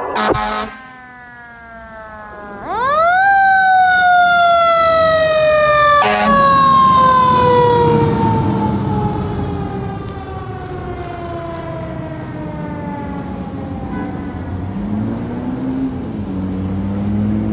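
A fire engine's Q mechanical siren spins up sharply about three seconds in, then winds down in one long, slowly falling wail. The engine's diesel is loud as the truck passes close by, and there is a brief burst about six seconds in.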